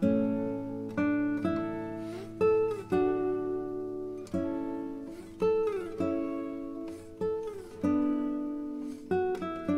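Background music: an acoustic guitar playing plucked notes and chords that ring and die away, with a few notes sliding in pitch.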